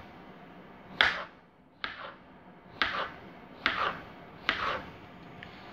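Kitchen knife slicing a yellow crookneck squash into rounds on a plastic cutting board: five sharp chops, a little under one a second.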